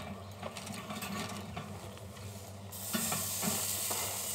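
Bone-in entrecôte sizzling on the hot grate of a Kamado Sumo grill during a quick final sear to restore its grilled crust. The sizzle swells into a loud, steady hiss about three seconds in, after a few light clicks of metal tongs.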